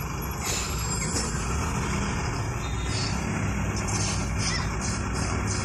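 Engine and traffic noise heard from inside a vehicle's cabin in slow city traffic: a steady low rumble, with a few short hissy bursts.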